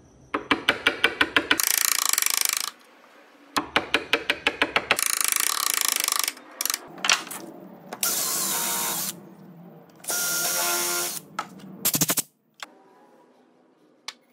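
Makita cordless drill/driver running in several short bursts, drilling into a clamped wooden board. The first bursts open with a quick run of clicks before a steady whir, and there is another short run of clicks near the end.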